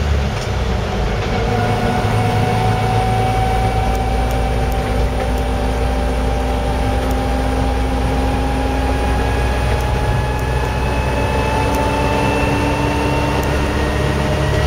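Land Rover Series 3 driving on the road, heard from inside the cab: engine and drivetrain running steadily, with a thin whine that climbs slowly in pitch as the vehicle gathers speed. The owner notes a noisy back axle on this drive.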